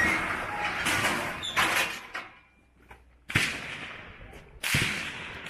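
Steel target carriers in a rifle-range pit being hauled by hand: metal sliding and rattling, then two sudden loud slams, one past the halfway point and one near the end.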